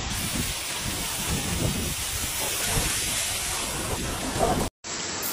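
Heavy typhoon rain pouring onto a flooded street: a steady hiss, with wind buffeting the microphone in low rumbles. The sound breaks off for a moment near the end and a similar rain hiss resumes.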